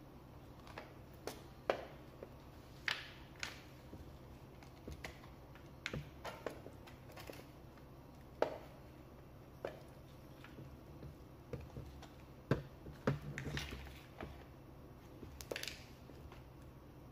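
Irregular clicks and light knocks of hard plastic and metal parts being handled, as the Makita DUX60 power head's plastic motor housing is worked onto its aluminium shaft coupling. The sound is a scattering of single sharp taps, with a small cluster of them about thirteen seconds in.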